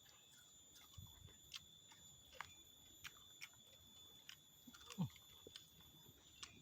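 Near silence with faint scattered clicks and crunches of someone chewing raw vegetables, a small thump about five seconds in, over a faint steady high-pitched tone.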